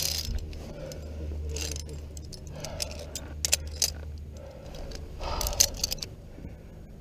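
Via ferrata climbing gear: steel carabiners jangling and scraping on the steel safety cable and against rock, with a few sharp metallic clicks about halfway through and a quick cluster near the end.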